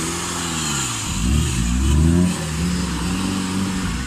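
Off-road vehicle engine revving, its pitch rising and falling repeatedly as it is worked under load, loudest about two seconds in.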